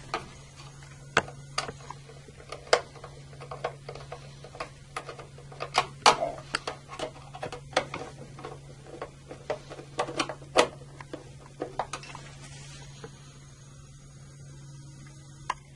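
Screws being driven with a screwdriver to fasten the front cover onto an Eaton Series NRX circuit breaker: a run of irregular sharp clicks and ticks for about twelve seconds over a steady low hum, then one last click near the end.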